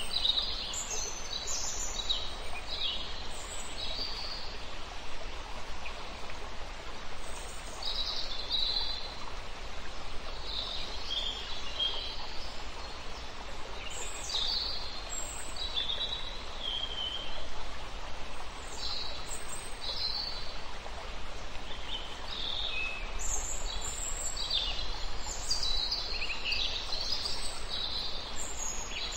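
Birds chirping in short, scattered calls over a steady rush of running water.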